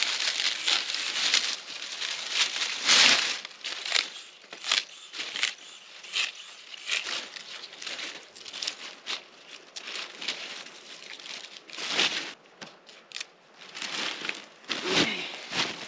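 Dry corn stalks and leaves rustling and crackling as they are handled and stuffed into a woven plastic sack, with irregular sharp snaps and crunches.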